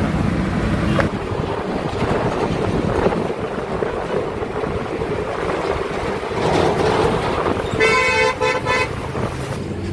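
Passing road traffic heard from a moving bicycle, with a vehicle horn honking for about a second near the end.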